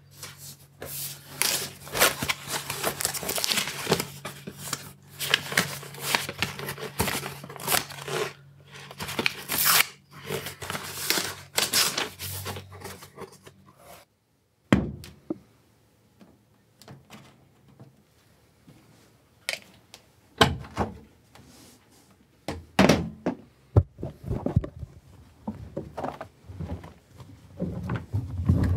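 Close rustling, crinkling handling noise over a low steady hum. After an abrupt cut about halfway through, scattered separate knocks and thunks follow.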